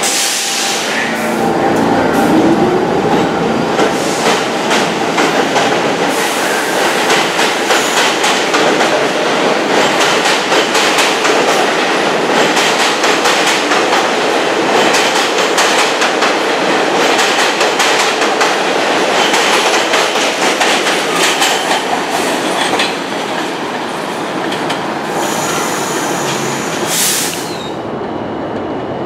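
New York City subway train pulling out of an elevated station. Its traction motors whine rising in pitch in the first seconds, then a steady loud rattle and clickety-clack of wheels over rail joints, with a brief high squeal near the end.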